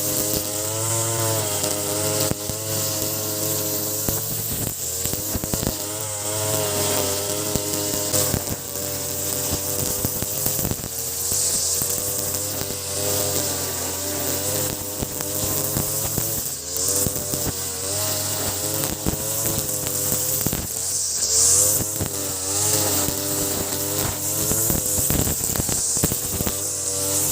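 Ogawa BG330 33cc two-stroke brush cutter, fitted with a larger 43cc carburettor, running hard while cutting grass. The engine pitch wavers up and down as the cutting head loads and unloads, and many sharp ticks sound throughout.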